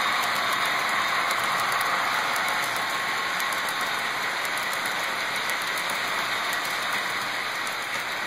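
HO-scale model freight train running: coal hopper cars roll steadily along the track with a continuous wheel whir and scattered light clicks.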